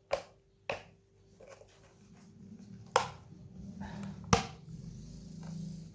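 Parts of a Dyson V6 cordless vacuum knocking and clicking together as it is handled and reassembled: four sharp knocks, one at the start, one under a second in, one about three seconds in and one just after four seconds, with quieter fumbling and rustling between.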